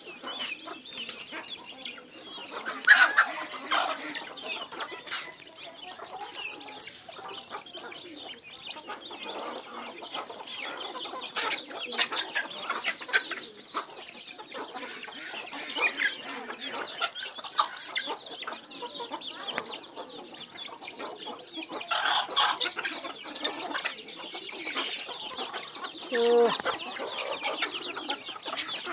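A flock of native chickens clucking as they feed, over a dense patter of quick taps from beaks pecking grain off a concrete floor. The clucking swells in a couple of busier spells, and a short falling call stands out near the end.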